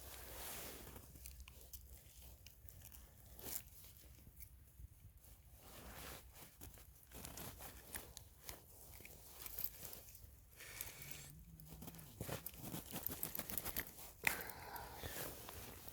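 Faint, scattered rustling, crunching and clicking handling noises, with a sharper click near the end.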